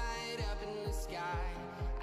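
Background pop music with a steady kick-drum beat, about two beats a second, and a melody over it.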